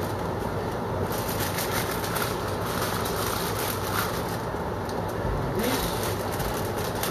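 Beef strips sizzling in a hot frying pan over a steady low hum, with a plastic produce bag rustling from about a second in.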